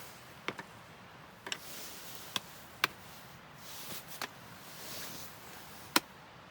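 A series of sharp, irregular clicks and snaps, some in quick pairs, over a faint hiss that swells and fades a few times.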